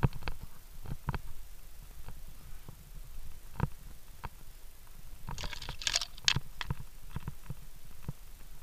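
Via ferrata gear handled on the move: carabiners and lanyard clinking against the steel safety cable and rock, scattered clicks and knocks with a brief cluster of brighter metallic jingling about five to six and a half seconds in, over a steady low rumble.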